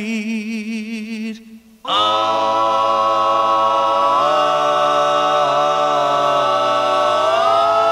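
Vocal music: a singing voice with a wide vibrato ends a line, then from about two seconds in, voices hold sustained chords in harmony, moving to a new chord twice.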